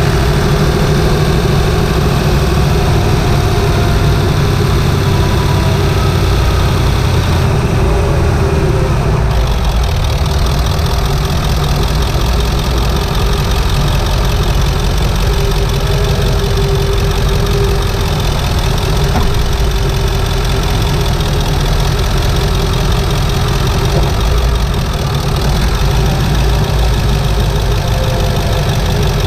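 7.3-litre Powerstroke turbocharged V8 diesel of a 1997 Ford F-250, heard from inside the engine bay, running steadily at low load.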